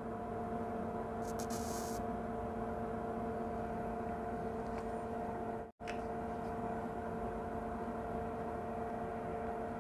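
Steady electrical hum made of several fixed tones over a faint hiss, with a short higher hiss about a second in. The sound cuts out completely for a moment a little past halfway, then resumes unchanged.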